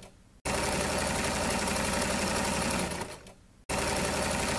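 Sewing machine stitching a seam through layered fabric at a steady speed, in two runs: it starts about half a second in, slows and stops around three seconds, then starts up again under a second later.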